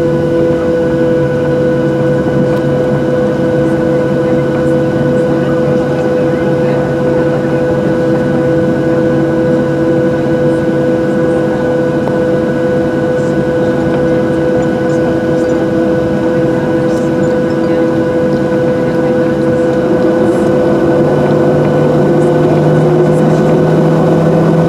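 Cabin noise in a Boeing 737-700 while taxiing: the CFM56-7B jet engines at low thrust give a steady hum and whine over a constant rush of air. It grows a little louder about twenty seconds in.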